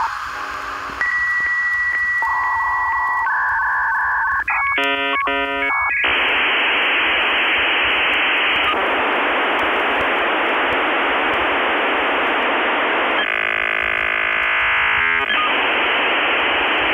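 Dial-up modem connecting over a phone line. Steady high tones come first, then a quick burst of warbling beeps about four and a half seconds in, then a harsh hiss of data with a short patterned buzz near the end.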